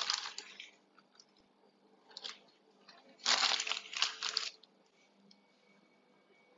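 Plastic piping bag crinkling as it is filled with buttercream and then squeezed and twisted, in a few rustling bursts, the longest and loudest about three seconds in.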